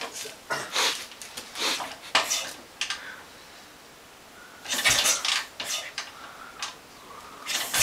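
Irregular metallic clanks and scrapes of a 1967 BSA Lightning 650 being kick-started, the engine turning over without catching. One speaker puts the trouble down to too much petrol getting in.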